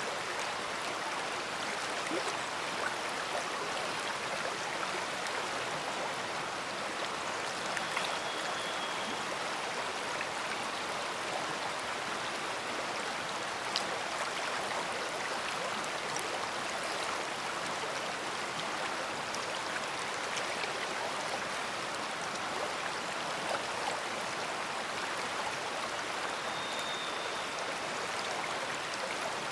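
A big river flowing: a steady, even rush of water. Two brief faint high whistles come through it, about eight seconds in and near the end.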